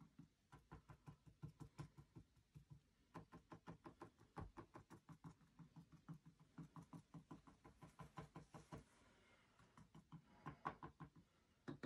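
Paintbrush dabbing paint onto a flat canvas panel: faint, quick taps, about five or six a second, pausing briefly and resuming near the end.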